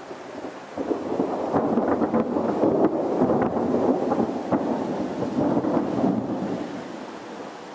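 A roll of thunder that swells about a second in, rumbles with sharp crackles for about five seconds, and fades away near the end.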